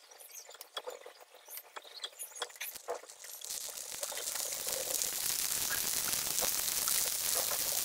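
Masala-stuffed okra pieces being laid one by one into hot oil in a non-stick frying pan: scattered small crackles and clicks at first, then, about three and a half seconds in, a steady sizzle of frying that grows louder.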